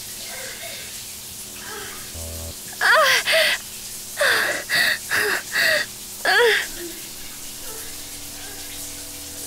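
A person crying out in a string of about seven short, loud cries with bending pitch, over a faint steady musical drone.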